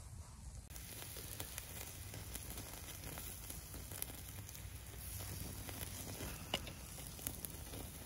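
Pork and venison shashlik skewers sizzling over wood embers, with scattered small crackles and pops.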